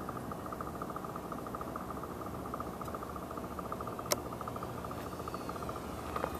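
Faint, steady buzz of a distant Parkzone Corsair RC plane's electric motor and propeller in flight, pulsing rapidly and evenly. A single sharp click comes about four seconds in.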